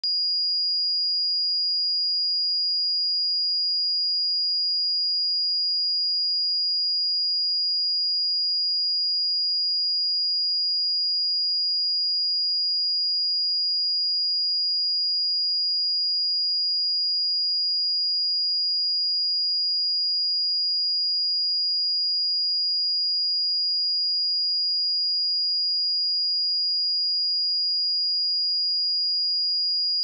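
A steady pure sine-wave test tone at 4863 Hz, a single unchanging high-pitched pitch at constant loudness, used for testing speakers and headphones.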